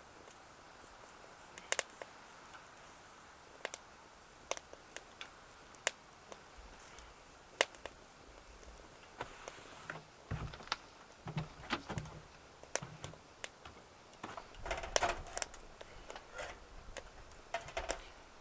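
Twigs burning in a BioLite Basecamp wood stove, crackling and popping in scattered sharp clicks over the faint steady hum of the stove's fan. There are knocks and handling sounds about ten seconds in and again near the end.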